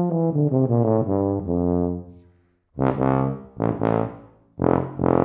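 Wessex Vienna F tuba played: a smooth run of notes that fades out about two seconds in, then a few loud, short accented notes, each left to ring and die away.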